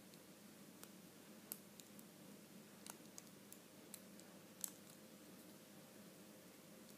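Faint, scattered clicks of a plastic hook and rubber bands against a small clear plastic Monster Tail loom as bands are lifted over its pegs, about eight or nine in all, the loudest a little past halfway, over a faint steady hum.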